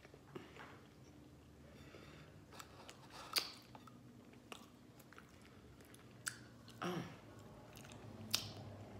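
A person chewing a mouthful of fried chicken and glazed donut sandwich close to the microphone, with scattered short wet mouth clicks and smacks.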